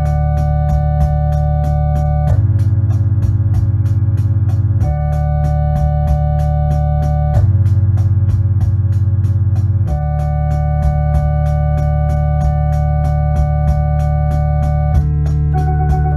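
Lo-fi Yamaha Electone electronic organ music: sustained chords changing about every two and a half seconds over a steady ticking rhythm of about four ticks a second, with a new chord and a wavering higher note near the end.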